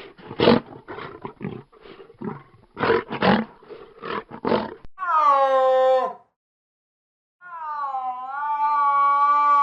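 Animal calls: a run of about a dozen short, rough calls over the first five seconds. Then a pitched call of about a second that falls in pitch and, after a short pause, a long steady pitched call of about three seconds.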